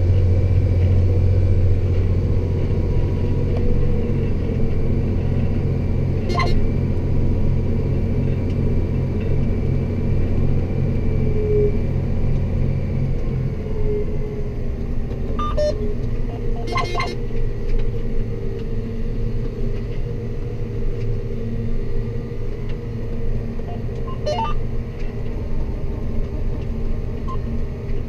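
John Deere 8320R tractor's six-cylinder diesel running steadily under load while pulling a seedbed cultivator, heard from inside the cab as a deep drone. About halfway through, the drone drops lower and quieter. A few short clicks are scattered through.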